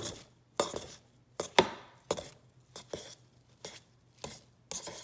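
Large kitchen knife chopping boiled, peeled potatoes in a pan, each cut going through to strike the bottom of the pan: about ten sharp knocks at an uneven pace.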